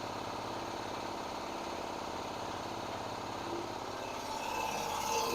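Air compressor running steadily with an even pulsing beat. A higher sound starts to build near the end.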